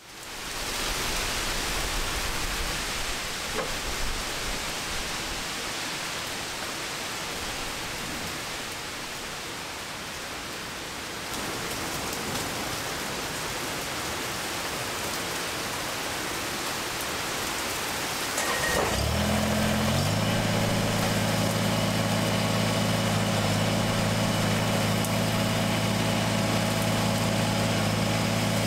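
Heavy rain falling steadily. About two-thirds of the way through, a Kubota BX23S tractor's three-cylinder diesel engine starts and settles into a steady idle over the rain.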